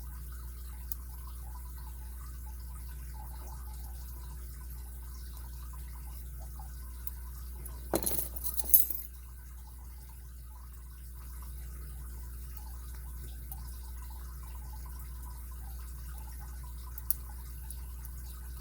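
Lock picking in a Kryptonite padlock: faint scraping of the pick against the pins over a steady low hum, then a short burst of sharp metallic clicks and rattle about eight seconds in, the tension tool slipping off the plug.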